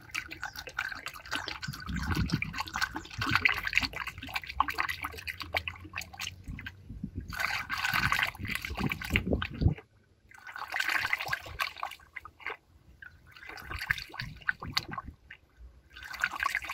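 Coolant pouring from a plastic jug into a plastic funnel at a radiator filler, splashing and trickling in uneven spurts, with a short break about ten seconds in.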